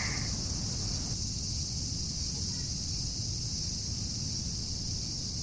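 Steady, continuous chorus of cicadas buzzing in a high, even drone, with a low rumble of outdoor ambience underneath.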